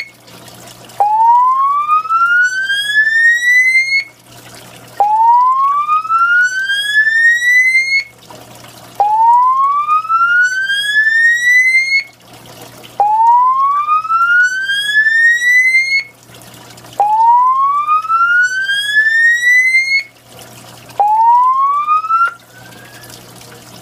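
Mircom FX-2000 fire alarm system's speakers sounding the slow-whoop evacuation tone: a loud rising sweep of about three seconds, repeating every four seconds. The last whoop cuts off partway through, near the end, as the alarm stops.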